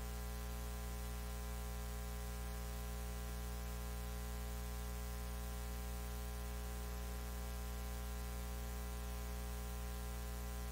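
Steady electrical mains hum, a buzz of many stacked tones over a faint hiss, unchanging throughout.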